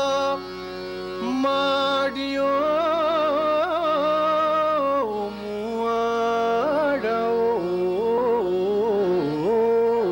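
Male Hindustani classical voice singing a phrase of raga Pahadi: long held notes with wavering ornaments, sliding and stepping between pitches.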